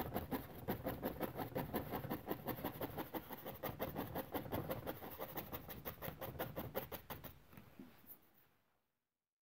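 A paintbrush tapping rapidly against a stretched oil-painting canvas, several dabs a second, laying texture into wet paint; the tapping fades out near the end.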